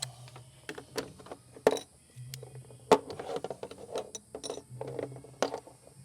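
Ratchet wrench clicking in short, irregular runs, with scattered metal clicks, as a 13 mm nut on a positive battery terminal clamp is tightened down.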